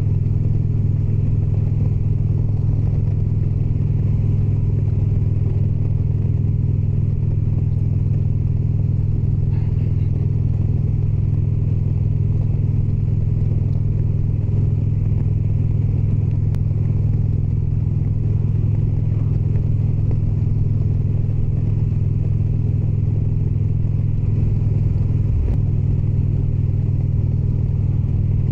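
Indian Springfield motorcycle's V-twin engine running at a steady cruise: a low, even drone, with a brief change in the engine note about 25 seconds in.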